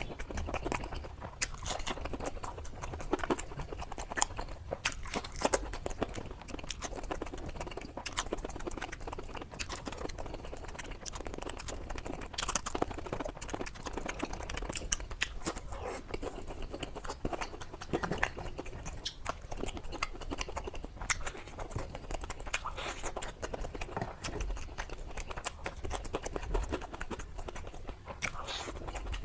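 Close-up chewing and biting of crunchy fried food, fried pomfret, pakora and salad, with irregular crunches and mouth sounds.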